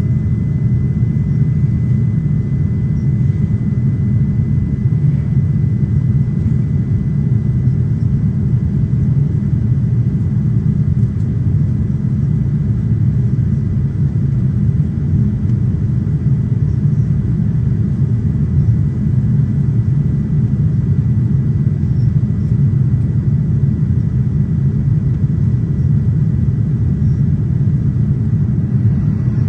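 Boeing 787 cabin noise in flight on approach: a steady low rumble of the engines and airflow, with a faint steady high tone above it.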